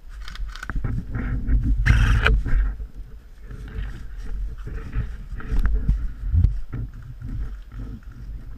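Footsteps and rustling through forest undergrowth and dead branches, with a heavy, uneven rumble from a moving body-worn camera being jostled. A louder rush of rustling comes about two seconds in.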